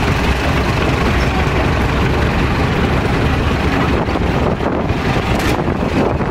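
Engine running steadily close by, a low rumble mixed with wind buffeting the microphone.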